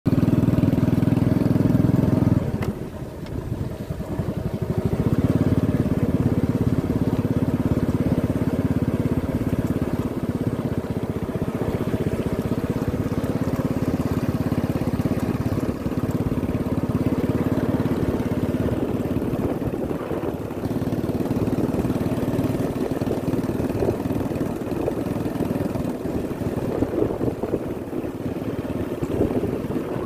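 Motorcycle engine running steadily while riding along a dirt track, with low wind rumble. The engine eases off about two and a half seconds in and picks up again a couple of seconds later.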